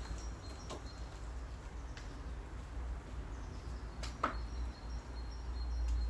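Open-country outdoor ambience: a steady low rumble with faint, repeated high chirps from birds or insects, and two short sharp calls or clicks, one about a second in and one about four seconds in.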